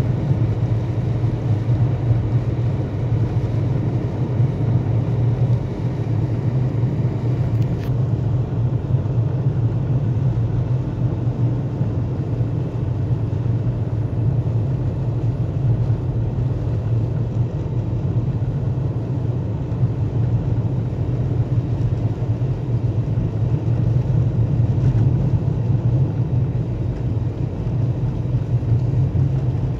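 Volkswagen Golf IV driving on a snow-covered road, heard inside the cabin: a steady low drone of engine and road noise.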